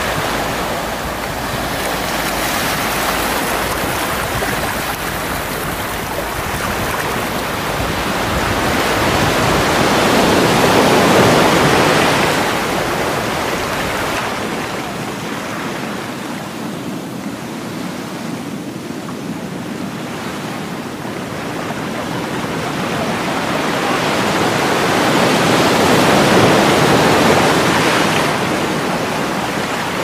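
Ocean surf: a continuous rush of breaking and washing waves that swells and ebbs slowly, peaking twice, about a third of the way in and near the end. A deep low rumble under it drops out about halfway through.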